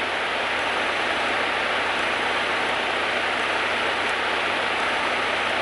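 Steady rushing cabin noise of a Cessna 152 with its engine running, heard through the intercom audio feed, with a faint steady tone underneath.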